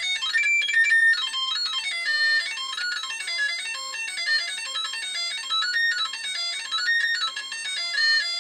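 555-timer electronic harmonium played through a small speaker: a quick run of buzzy electronic beeps, one note at a time, stepping up and down in pitch as the probe is moved from one copper strip to the next.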